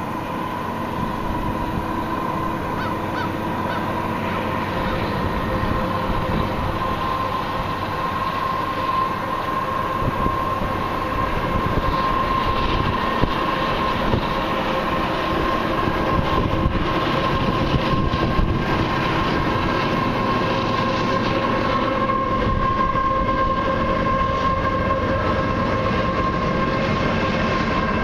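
A long freight train led by two Canadian Pacific diesel locomotives approaching and rolling past, its cars strung out behind. The sound grows steadily louder, with a steady high tone running through it.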